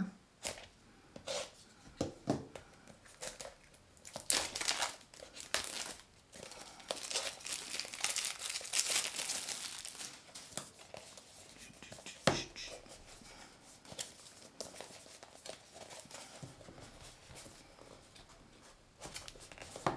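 Plastic packaging being cut open, torn and crinkled, with scattered sharp clicks and snaps and a longer stretch of rustling about seven to ten seconds in.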